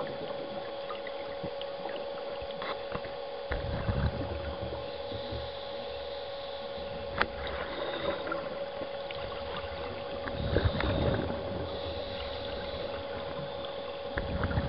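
Underwater: a scuba diver's exhaled bubbles rush out in low bursts about four seconds in, again around ten and a half seconds, and just before the end. A steady hum runs under them, and there is a single sharp click near the middle.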